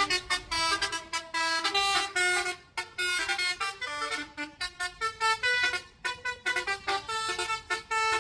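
Bus telolet horn, a multi-tone air horn, playing a fast tune of short notes that keep changing pitch, with a few brief breaks between phrases.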